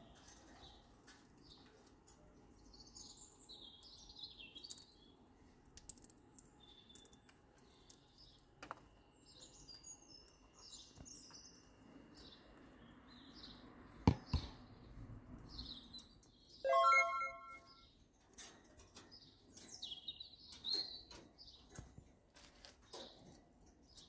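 Quaker parrots chirping softly and on and off, with one louder call about two-thirds of the way through. A sharp knock comes shortly before that call.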